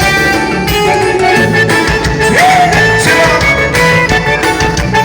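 Upbeat Brazilian dance-band song with a steady beat, in a stretch with no sung words.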